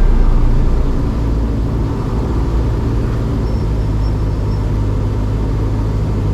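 Steady low drone of a Cessna 162 Skycatcher's engine and propeller heard inside the cockpit on final approach, easing slightly in loudness over the first second or two.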